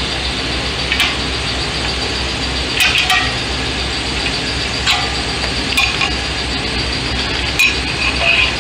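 Light metallic clinks and taps of a steel hand tool against a car's front brake rotor and hub, irregularly spaced, over a steady background hum.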